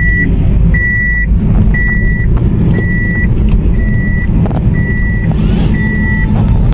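Car cabin while driving: low engine and road rumble, with the car's electronic warning chime beeping about once a second, each beep a steady high tone lasting about half a second.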